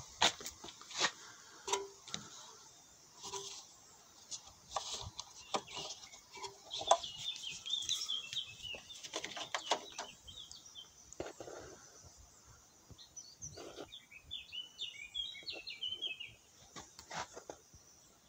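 Scattered clicks and knocks of handling around an opened electronics casing. Birds chirp rapidly in two stretches of a few seconds, one around the middle and one later on.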